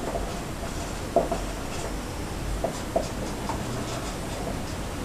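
Marker pen writing on a whiteboard: a series of short strokes, the sharpest about a second in and again near three seconds.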